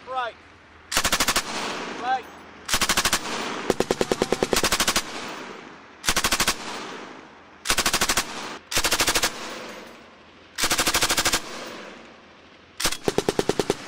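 M249 5.56 mm light machine gun firing about eight short bursts of automatic fire, each roughly half a second to a second long, with brief pauses between them.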